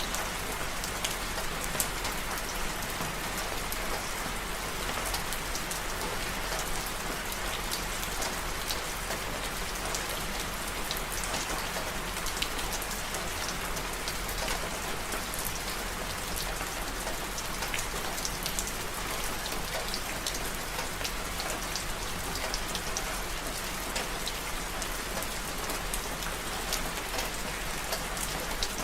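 Steady rain falling, with many separate drops ticking sharply on a hard surface.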